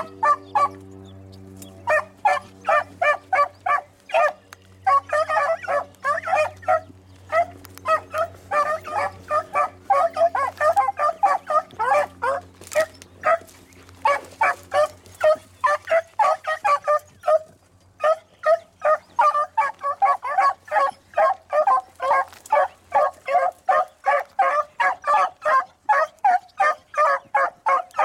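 A pack of beagles baying as they run a rabbit's scent trail, a continuous chorus of short, overlapping barks several to the second, starting about two seconds in. A low steady hum lies underneath through the first half and fades out.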